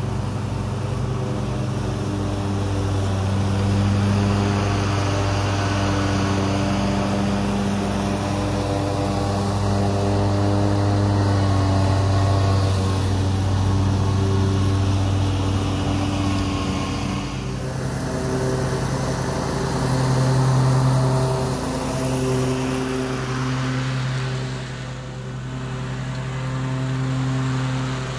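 Stand-on commercial lawn mower's engine running steadily under mowing load, its pitch shifting slightly about two-thirds of the way through.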